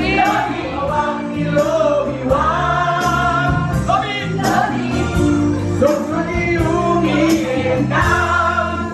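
A man singing live into a microphone over backing music played through a loudspeaker, with several women singing along.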